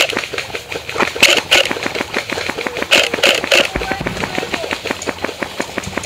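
Airsoft rifles firing: a fast, continuous run of sharp snapping shots, with several louder close shots near the start, about a second in and around three seconds in.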